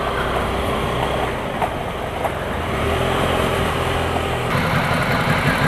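Motorcycle engine running at low speed with road noise, heard from on the bike; the sound changes abruptly about four and a half seconds in.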